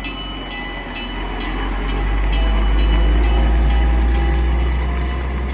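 Antique fire truck's engine running as it drives past, growing louder to a peak midway and then easing off as it moves away. Sharp ringing metallic strikes come about twice a second throughout.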